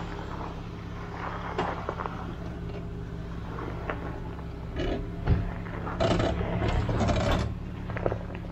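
Off-road vehicle's engine running with a steady low drone, over scattered clicks, creaks and knocks as it moves over a rough trail, the rattling getting louder about six seconds in.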